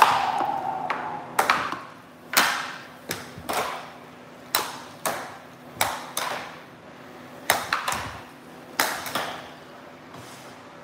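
Air hockey puck and plastic mallets knocking against each other and the table rails: about a dozen sharp clacks at an uneven pace, each ringing briefly, over a faint steady hum.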